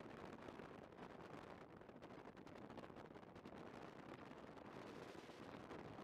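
Faint, steady rush of wind and road noise from a motorcycle riding along at speed, with no clear engine note standing out.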